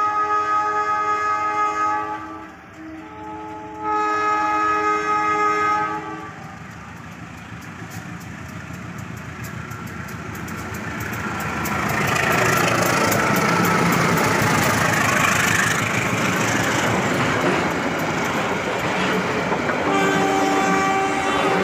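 Diesel locomotive's multi-tone horn sounding two long blasts, then a passenger train passing close with a loud rush of wheels on rail and rapid clicking over the rail joints. The horn sounds again near the end.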